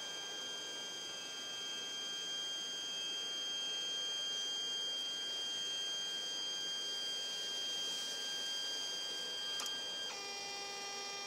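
3D printer stepper motors whining with several steady high tones. About ten seconds in there is a click, and the whine switches to a different set of tones as the motion changes.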